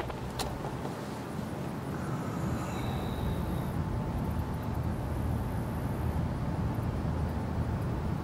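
Steady low rumble of outdoor background noise, with a faint brief high tone about three seconds in.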